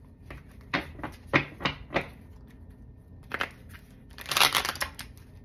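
A deck of tarot cards being shuffled by hand: short snaps and rustles, a few quick ones in the first two seconds and a longer run of riffling about four seconds in. The cards catch and don't want to shuffle smoothly.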